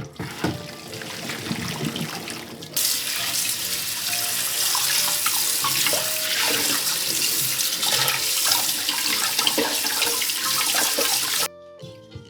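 Tap water running hard into a kitchen sink. It starts about three seconds in and shuts off abruptly shortly before the end, after a few knocks of handling.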